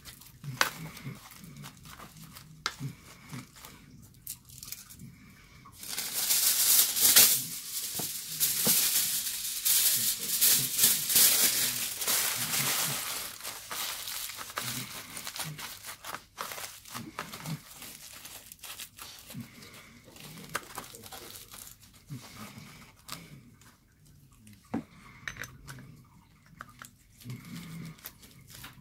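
Aluminium foil crumpled and squeezed by hand, crinkling. It is loudest for several seconds from about six seconds in, then goes on as quieter scattered crinkles and handling noises.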